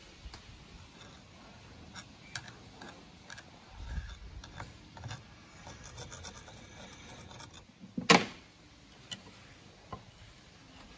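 Metal screwdriver scraping and tapping against the corroded impeller and housing of a scallop-type air blower, with scattered clicks and one loud sharp clank about eight seconds in.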